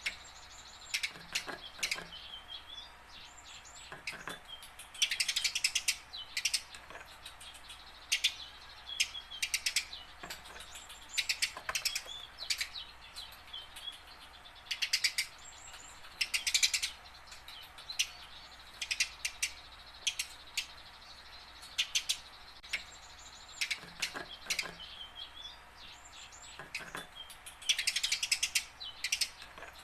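A tame Eurasian tree sparrow practising its calls: quick clusters of sharp chirps come every few seconds, with softer thin notes between them.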